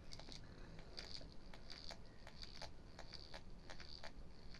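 Abu Garcia 1044 Syncro Match closed-face fishing reel turned by hand after cleaning, its mechanism giving faint, regular ticks at about four a second.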